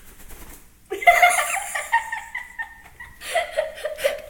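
People laughing, starting about a second in, in short bursts of changing pitch.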